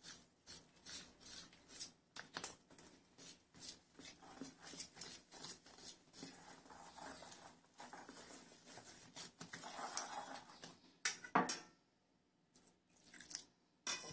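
Wire whisk beating thick gram-flour batter in a stainless steel bowl: quick, irregular scraping and clicking strokes of the wires against the bowl, with a couple of louder knocks about eleven seconds in, then a brief pause before the strokes resume.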